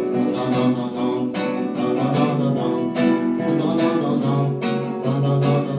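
Music from an upbeat song: an instrumental passage with a steady beat under sustained melodic notes.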